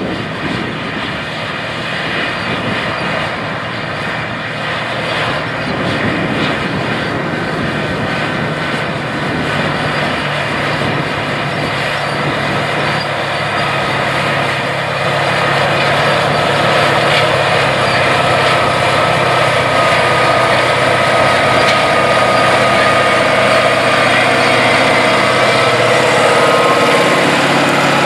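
Caterpillar 3208 V8 diesel of a White Farm Equipment 4-225 four-wheel-drive tractor running steadily under load while pulling a tillage implement. It grows gradually louder as the tractor approaches.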